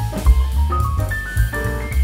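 Background music: an upbeat tune with a drum beat, a bass line and a stepping melody.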